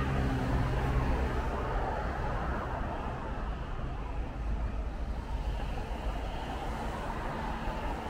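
Steady city traffic in the rain: a constant hiss of tyres and the low hum of engines, with one vehicle's engine drone loudest in the first second or so.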